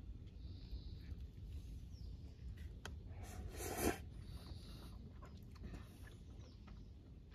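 A person slurps instant yakisoba noodles once, about three seconds in, a short slurp that grows louder before it stops. A low rumble runs underneath.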